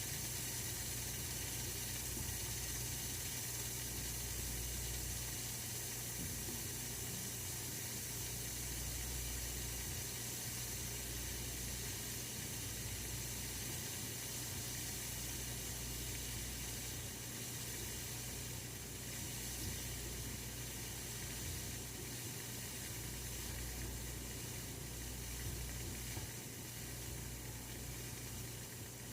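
Oil-filled radiator heater running: a steady hiss with a low hum underneath.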